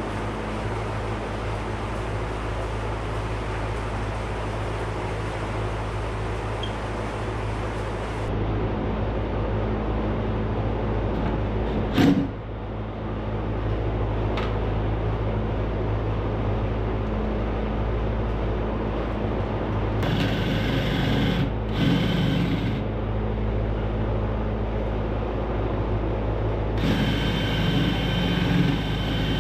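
A handheld power drill boring into a wooden stud, running in two stretches of a few seconds each in the last third, over a steady low hum. There is one sharp knock about twelve seconds in.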